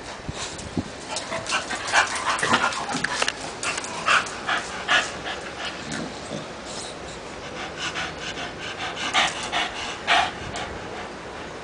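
English bulldogs panting in quick, irregular breaths, with a few louder breaths about nine and ten seconds in.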